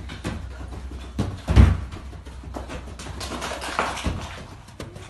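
A child's feet thudding and scuffing on artificial turf and a padded plyometric box during a quick-feet drill, with irregular knocks and one heavy thump about a second and a half in.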